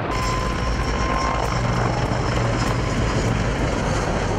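Mil Mi-26 heavy-lift helicopter flying overhead: a steady, dense rotor and engine noise with a faint, regular beat from the blades.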